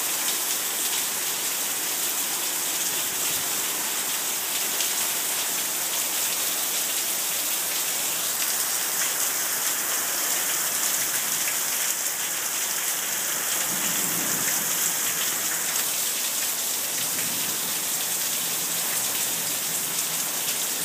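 Heavy rain coming straight down on a lawn and patio, a steady even hiss.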